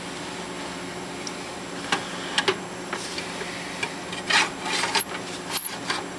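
Hard drive being handled and slid into a Drobo drive bay: scattered clicks, then a stretch of scraping and rubbing between about four and five and a half seconds.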